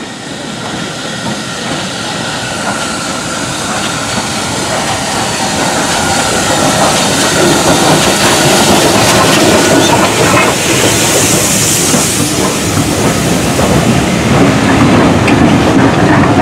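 BR Standard Class 4 2-6-4 tank locomotive 80072 running into a station with a train of coaches, growing steadily louder as it approaches; a short burst of steam hiss as the engine draws level, about two-thirds of the way through, then the coaches rolling past close by.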